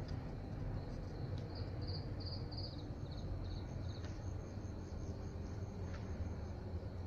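Insects chirping: a faint high trill, and between about one and four seconds in a run of sharper high chirps, about three a second. Under them runs a steady low rumble.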